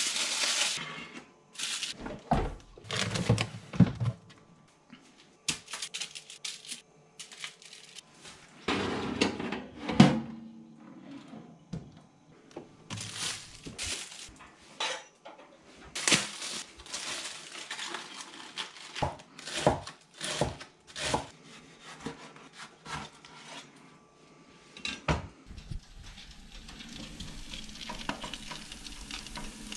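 Kitchen handling sounds: aluminium foil crinkling and a metal baking tray clattering, then scattered knocks and rustles. Near the end a steady hiss with a low hum sets in: a toaster oven running with bacon sizzling on a foil-lined tray.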